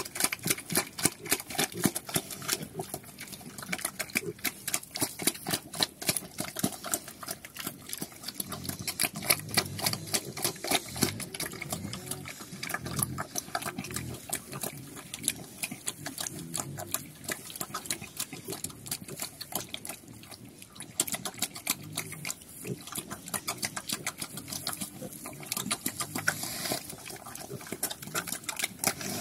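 A Kandorl sow eating wet slop from a trough: a fast, continuous run of smacking, slurping chomps. Low pig grunts come in around the middle.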